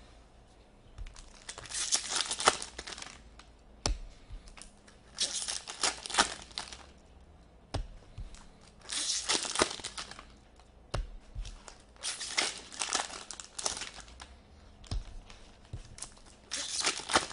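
Foil hockey card pack wrappers being torn open and crinkled, in about five bursts a few seconds apart, with a few sharp taps between them.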